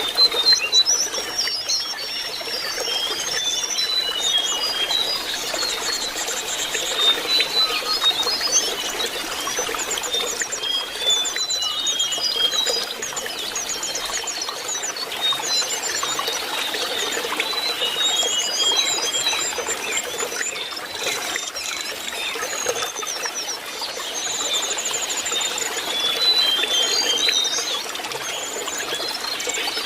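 Lesser shortwing song, a continuous run of quick, high whistled and twittering notes, over a steady trickle of running water.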